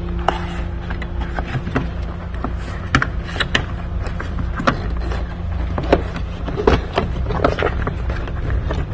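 Scattered sharp clicks and knocks of plastic trim and the rubber cowl seal being handled and pulled in a car's engine bay, over a steady low rumble and faint hum.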